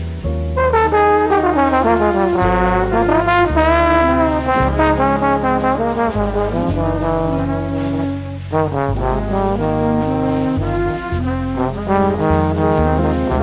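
Jazz combo playing a slow ballad instrumentally: a brass horn solo in quick melodic runs over a bass line stepping about once a second, with piano and drums.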